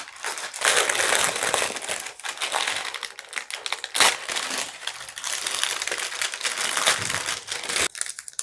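Parchment paper crinkling and crackling as it is peeled off cooled, melted 3D-print plastic formed over a metal bowl, with sharp crackles throughout and one louder crack about halfway through; it quietens near the end.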